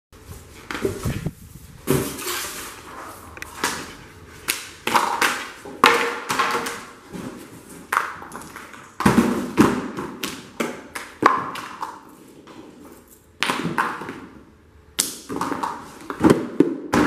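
An irregular run of sharp knocks, taps and clatters, about one or two a second, each with a short ringing tail in a small room.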